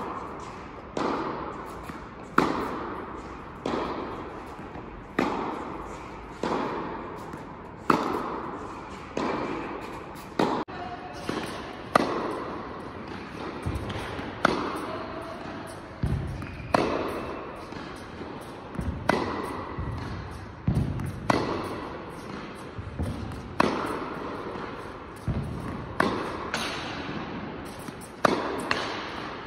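Tennis balls struck by rackets in a steady groundstroke rally, with ball bounces between. The sharp hits come about every one and a half seconds and echo in an indoor tennis hall.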